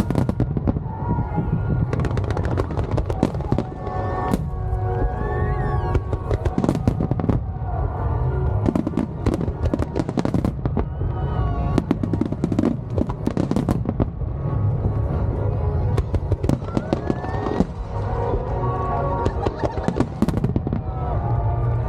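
A fireworks display with rapid, overlapping bursts and crackling throughout. A song plays underneath.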